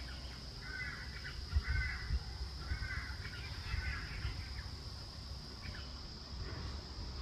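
A bird giving about four harsh, caw-like calls, each roughly a second apart, over the first four seconds. Wind rumbles and bumps on the microphone, and a steady high hiss runs underneath.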